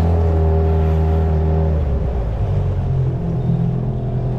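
Hangkai outboard motor running on an inflatable boat, a steady engine hum whose note changes about two seconds in.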